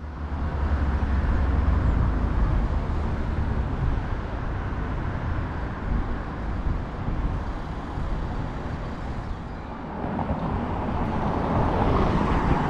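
Outdoor urban ambience of steady road traffic noise, with no distinct single event. The sound changes about ten seconds in and grows louder near the end.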